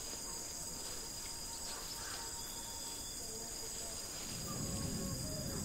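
Rainforest insect chorus: a steady high-pitched drone with no break. About four seconds in, a low rumbling sound rises beneath it.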